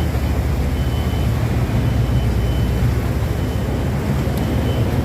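A ship's engine running with a steady low rumble and a rapid, even throb.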